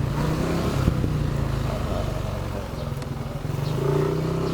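Motor scooter with an aftermarket WF power pipe exhaust running while being ridden, a steady drone that is not loud. It eases off about three seconds in and picks up again near the end.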